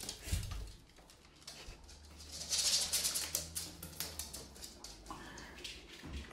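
Quick clicking and pattering of a small Bichon Frise's claws and paws on a hard floor as it scampers along, busiest about halfway through.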